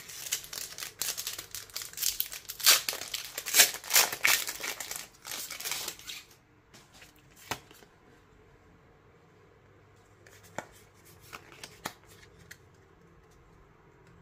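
Foil Pokémon booster-pack wrapper crinkling loudly as it is opened, for about the first six seconds. After that, a few light clicks and taps of the trading cards being handled.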